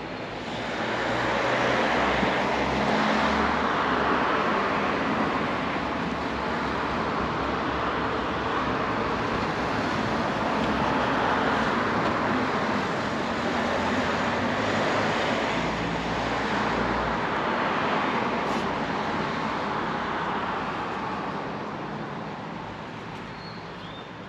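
Road traffic noise: motor vehicles going by, the noise swelling and fading several times, with a low engine rumble coming and going.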